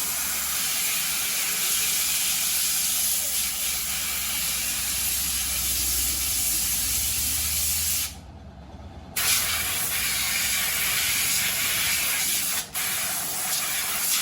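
Pressurised spray gun hissing steadily as it blasts the motorcycle. It cuts out about eight seconds in, starts again a second later, and breaks off once more briefly near the end.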